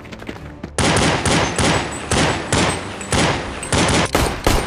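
Rapid blaster gunfire, in bursts of shots at about two to three a second, starting about a second in.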